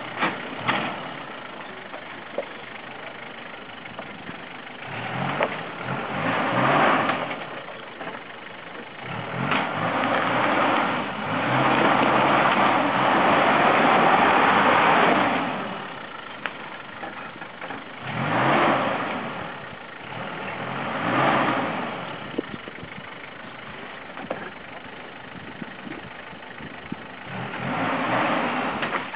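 Vauxhall Frontera 4x4's engine revving in repeated surges under load as it crawls up and over rocks, dropping back to a low idle between pushes; the longest rev, near the middle, lasts several seconds.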